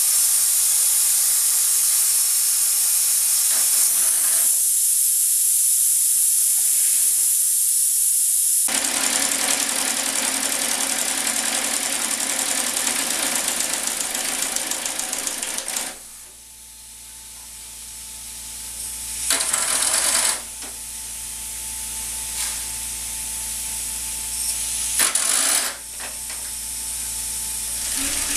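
Marion 91 steam shovel model running on steam: a steady loud hiss with fast mechanical chatter from its small engines. About halfway through the sound drops away, leaving a quieter hiss, and two short loud bursts of steam follow.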